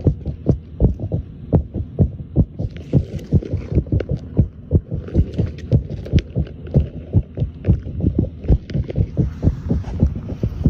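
Fast, uneven low thumping, about three or four pulses a second, like a heartbeat: the unexplained vibration that seems to come from just underground.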